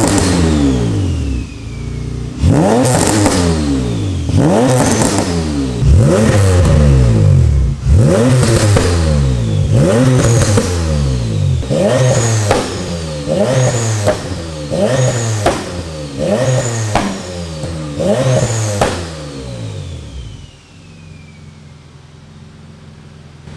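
Turbocharged Acura TL Type-S V6 blipped through its exhaust about a dozen times, each rev rising and dropping quickly, with a high turbo whistle falling away after the revs. Near the end it settles to a lower, steady idle.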